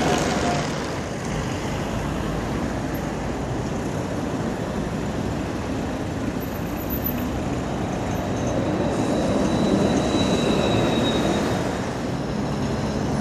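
City street traffic: cars and buses driving past with steady tyre and engine noise, swelling about ten seconds in as a vehicle passes close, with a thin high whine at that time.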